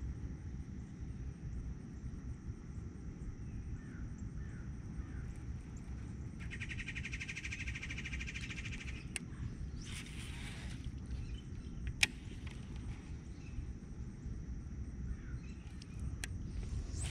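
Outdoor dawn ambience over water: a steady low rumble with birds calling, including a buzzy rattling call that lasts about two and a half seconds near the middle. A single sharp click stands out about two-thirds of the way through.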